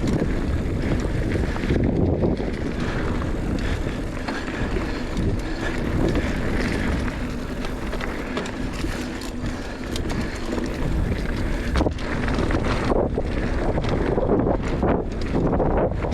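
Wind rushing over the microphone of a mountain bike in motion on a dirt trail, with tyre noise and a few short knocks and rattles from the bike in the second half.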